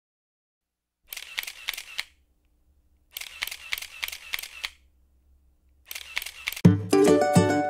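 Camera shutter firing in three quick bursts of rapid clicks, about six clicks a burst, like a camera on continuous shooting. Near the end, plucked-string music starts.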